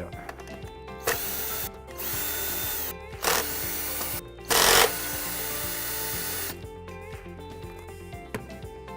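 Power screwdriver running in about five short bursts, backing out the screws that hold the pool cleaner's gearbox module. The loudest burst is the short one about halfway through. Background music plays underneath.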